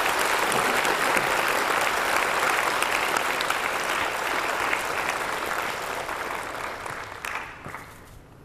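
Audience applauding after a lecture, a steady dense clapping that tapers off and dies away in the last couple of seconds.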